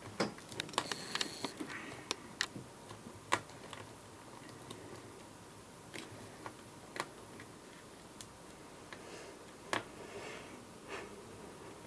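Irregular light clicks and taps of a small screwdriver and fingers working on a laptop's display assembly, with a few short scratchy rubbing sounds.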